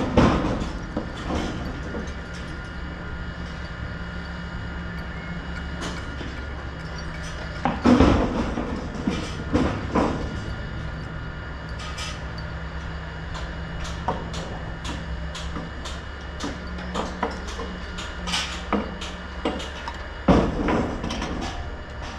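Building-site noise: a steady machine hum with a low tone that comes and goes, and irregular metal clanks and knocks. The loudest clanks ring briefly, about eight seconds in and near the end.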